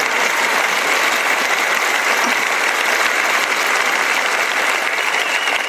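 Congregation applauding, a steady dense clapping that begins to fade near the end.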